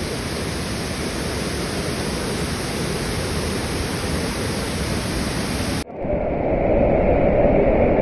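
Waterfall in monsoon flow: a steady, full rushing of falling water. About six seconds in it cuts off abruptly and is replaced by a louder, muffled rushing noise.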